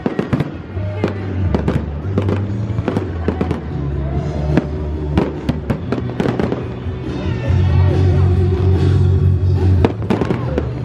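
Fireworks display: many sharp bangs and crackles of bursting shells in quick succession, over music with a steady low bass line.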